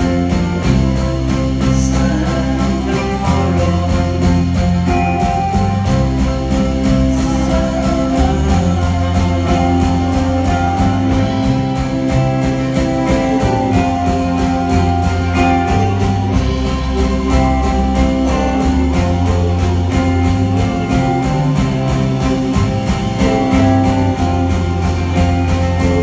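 Live band playing: guitars over a sustained bass line that shifts note every couple of seconds, with drums keeping a steady beat.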